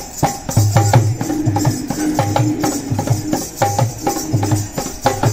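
Dholak, a two-headed barrel drum, played by hand in a steady folk rhythm: deep strokes on the bass head about two to three a second, with sharp slaps on the treble head between them.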